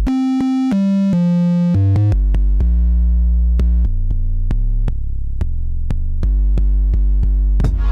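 A sample-based beat playing back from a Maschine groove box, built from Golden Kingdom expansion sounds. It opens with a run of short melodic notes stepping downward. About two seconds in a heavy deep bass line enters under light percussion clicks, and a fuller drum pattern kicks in near the end.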